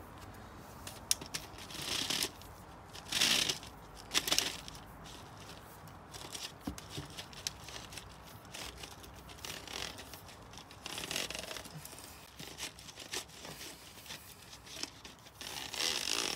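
Armoured cable being pulled by hand through plastic underground ducting, scraping and rasping against the duct in a run of separate pulls, with small clicks in between.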